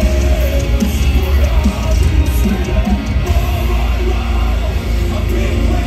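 Metalcore band playing live through a loud outdoor PA: distorted guitars and drums over a heavy, booming low end.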